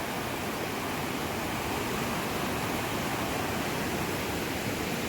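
Steady rushing of creek water and a waterfall.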